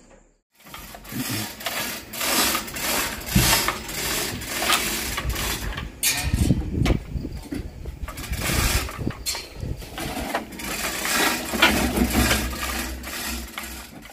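Irregular metallic rattling and clanking of rigging as a stack of line-array speaker cabinets is hoisted up a truss tower, with louder knocks now and then; it starts about half a second in.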